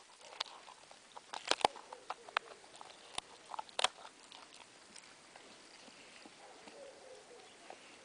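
A dog chewing on a bone, with irregular sharp cracks and crunches, most of them in the first four seconds and fewer after.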